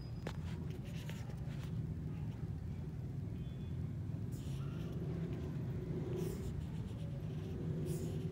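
Thunderstorm at night: a continuous low rumble of distant thunder, with a few short clicks in the first couple of seconds and brief hissing gusts around the middle and near the end.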